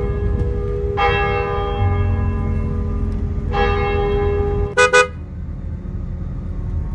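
Church bell tolling, struck twice about two and a half seconds apart, each stroke ringing on and fading, over the low rumble of a bus. Two short sharp clicks just before the second stroke dies away.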